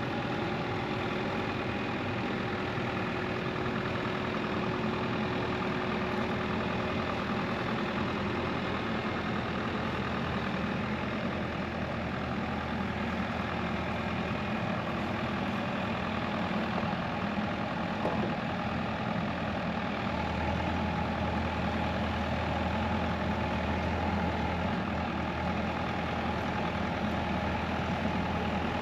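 A heavy machine's engine running steadily, with a deeper low hum coming in about twenty seconds in.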